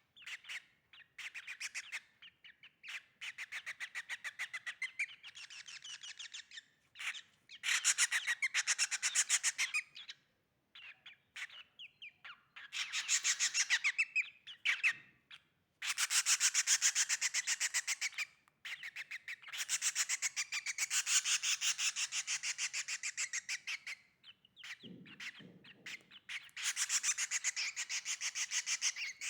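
Baby bird begging to be fed: rapid, closely spaced high chirps in runs of a few seconds with short pauses between.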